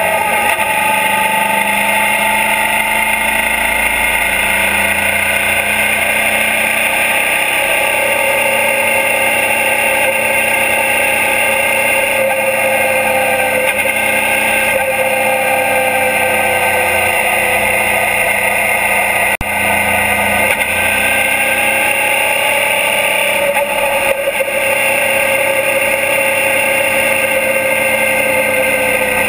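The 645 cc V-twin engine of a 2012 Suzuki DL650 V-Strom motorcycle running at a steady cruise, heard close up from its engine guard over constant wind and road rush. Its pitch drifts slowly and gently lower, with one brief dip in level about nineteen seconds in.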